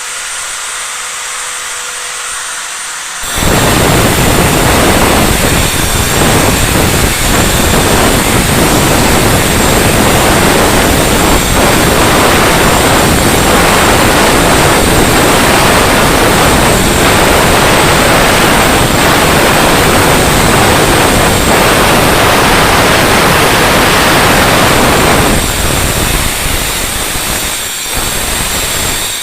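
Electric power tool running at a steady high whine. About three seconds in it bites into the work and runs loud and rough for about twenty seconds, cutting or grinding. It eases off near the end.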